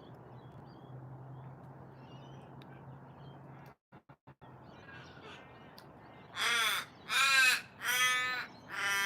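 Australian raven calling: four loud, drawn-out caws in quick succession, starting about six seconds in.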